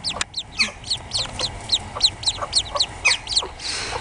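Young ducklings peeping: a steady run of short, high chirps, each sliding down in pitch, several a second. A brief rustling hiss comes in just before the end.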